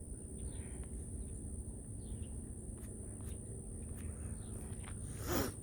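Faint outdoor background with a few faint, scattered bird chirps over a steady high-pitched insect-like buzz. A brief louder swish comes about five seconds in.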